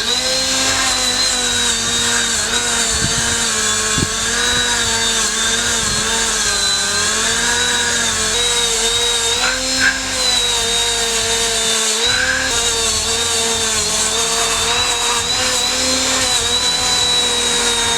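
Milwaukee M12 cordless 90-degree die grinder running continuously with a steady high motor whine, its pitch dipping and recovering slightly as the load changes.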